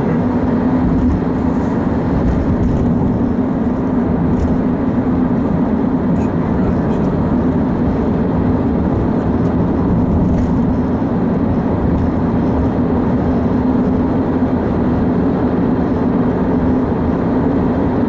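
Steady road noise of a moving car heard from inside it: tyre rumble and engine drone with a constant low hum, unbroken throughout.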